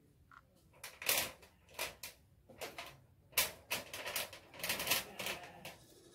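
Rooster pecking at the ground, an irregular run of sharp taps and rustles, some in quick pairs.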